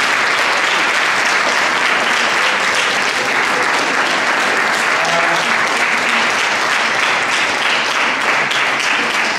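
Audience applauding, a steady clatter of many hands clapping at once.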